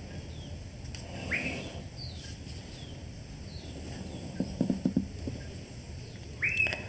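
Birds chirping in the background: short high chirps and two rising whistled calls, with a few soft low knocks about two-thirds of the way through.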